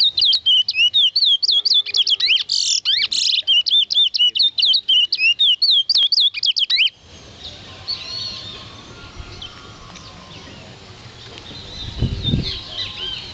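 Caged towa towa seed finch singing a fast, loud run of quick up-and-down whistled notes that stops abruptly about seven seconds in. After that only faint chirps, and a brief low rumble near the end.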